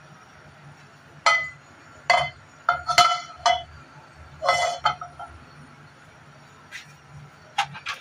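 Nonstick frying pan clinking and knocking against the stove's burner grate as it is handled and tilted to spread the heating oil: a run of sharp, ringing clinks in the first half, then two more near the end.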